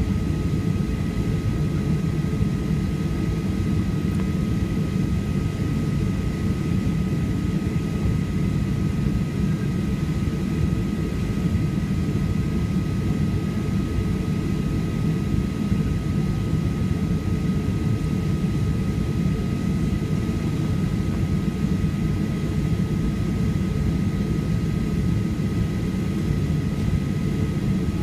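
Steady in-flight cabin noise of a Boeing 737-800: a deep, even rush of air and CFM56 engine noise, with a faint steady whine above it.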